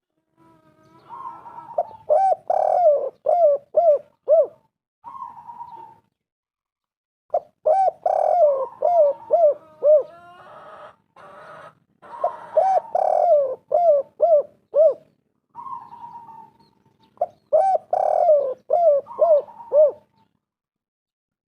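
Spotted dove cooing in four phrases, each a few seconds of short, rhythmic hooting notes, with pauses between phrases.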